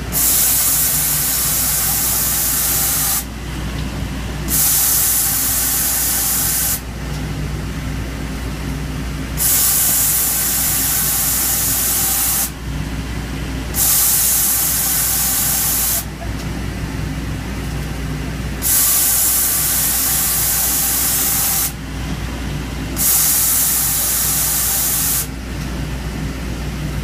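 Kinetic K5000 plate drill machining a blind hole in 2-inch steel plate: a steady machine hum, with a loud hiss that cuts in and out six times, each burst about two to three seconds long with a second or two between.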